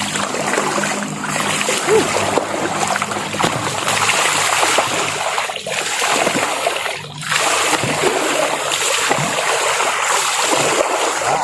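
Running water pouring and splashing in a steady rush during a bath in running water, broken by brief pauses about five and a half and seven seconds in.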